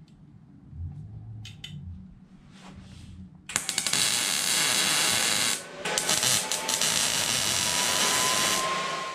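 Wire-feed welding arc crackling in two runs of a few seconds each, starting about three and a half seconds in with a short break between them, as tack welds are laid on a steel tube bicycle rack. Before the arc strikes there are only a few light clicks of handling.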